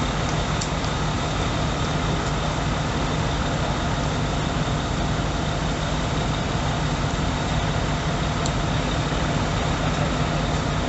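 Large vehicle engine idling steadily, a constant low hum with a couple of faint clicks.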